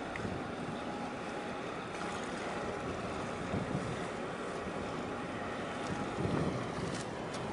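Steady rumbling noise of a container ship and its harbour tug under way, with wind buffeting the microphone. Two louder low gusts come about three and a half and six seconds in.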